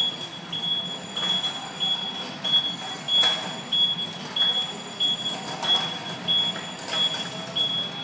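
A warning beeper sounding short high beeps about one and a half times a second, over the low rumble of steel train wheelsets rolling as an electric tug tows them, with an occasional metallic clank.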